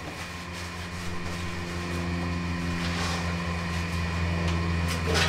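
Steady low electric hum of a small fan motor running, with a few faint clicks.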